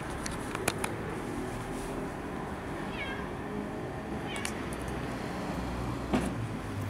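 A cat gives a short, slightly falling meow about three seconds in, over steady outdoor background noise with a few sharp clicks.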